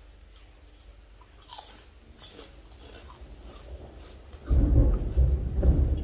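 Close-up chewing and biting of pickled raw shrimp and blue crab, with small wet clicks of the mouth. About four and a half seconds in, a loud low rumble comes in suddenly and stays to the end.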